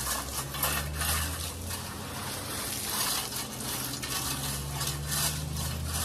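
A rake dragging and scraping through loose gravel in repeated strokes, the stones rattling and clattering, as a gravel base is spread and levelled. A low steady hum runs underneath.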